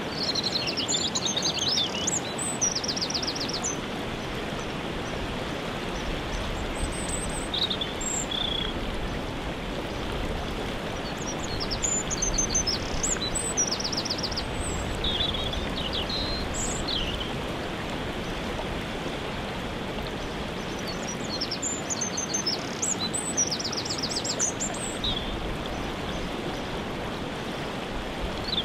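Steady rushing of a waterfall, with songbirds singing short phrases of chirps and quick trills in several separate bouts over it.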